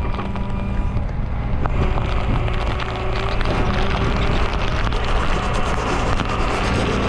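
Rollback tow truck's engine running steadily at raised idle to drive the hydraulic PTO, with a steady mechanical hum and a rushing noise that grows after about two seconds.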